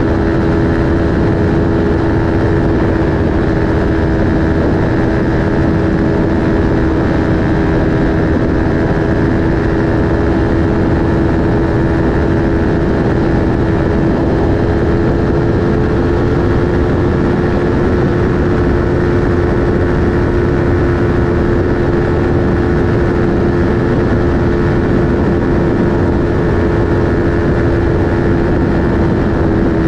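Aprilia Tuono 1100 RR's V4 engine through an Akrapovic slip-on exhaust, holding nearly constant revs at speed, its pitch edging up slightly about halfway through, over a steady rush of wind and road noise.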